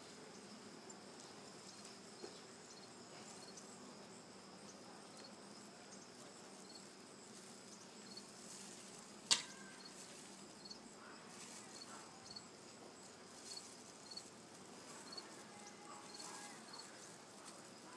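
Faint steady hum of honeybees around an open hive, with faint, regular high chirps from an insect such as a cricket through the middle and a single sharp click about nine seconds in.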